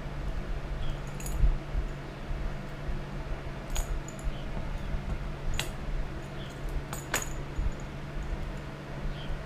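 A few sharp, light clicks, two of them close together near the end, over a steady low hum.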